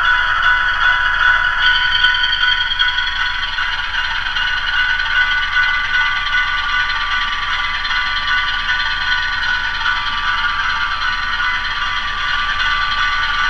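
MRC 1803 sound decoders in HO-scale Walthers Proto 2000 ALCO PA and PB diesel locomotives playing a diesel engine sound through their small onboard speakers, thin with little bass, together with the clatter of the model cars rolling over track. The engine sound is steady, with a change in pitch about two seconds in.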